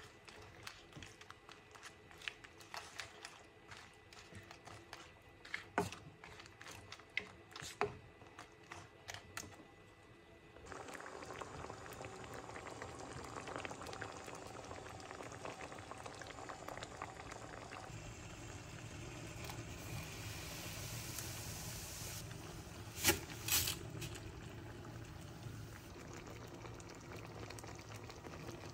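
A wooden spoon stirring mantis shrimp in tomato sauce, with scattered clicks and knocks against the pan. After about ten seconds this gives way to the steady bubbling of the sauce simmering in the pan, with two sharp knocks about two thirds of the way through.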